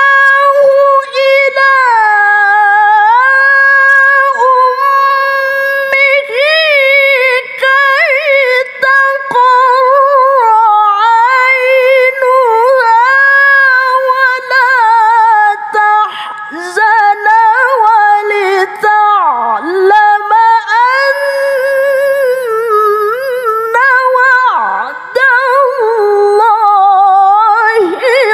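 A woman reciting the Quran in melodic tilawah style: long, high held notes with quick wavering ornaments and turns, broken by a few short pauses and downward swoops.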